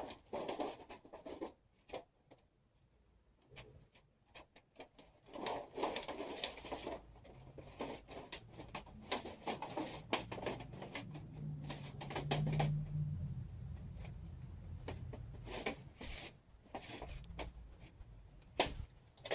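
Thin titanium sheet stovepipe being rolled and handled, with scattered light metallic clicks and crinkles as the retaining rings are fitted along it. A short low hum sounds near the middle.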